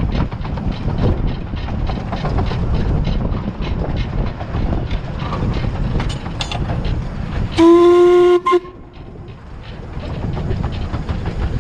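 15-inch-gauge 2-8-2 steam locomotive running along the line, with one steady blast of about a second on its steam whistle about eight seconds in, which cuts off sharply.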